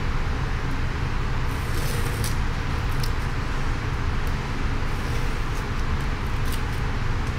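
Blue painter's tape being peeled off a plexiglass printing plate, a few faint crackles scattered through, over a steady low background rumble that is the loudest sound.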